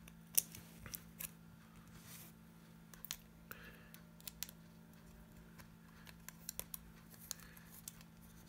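Small metal screws and brass standoffs clicking and tapping against a clear acrylic case plate as the standoffs are turned on by hand: scattered light clicks at irregular intervals.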